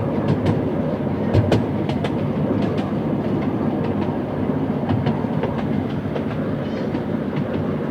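Miniature railway train running along the track, heard from a riding carriage: a steady rumble from the wheels on the rails, with irregular sharp clicks as the wheels pass over rail joints.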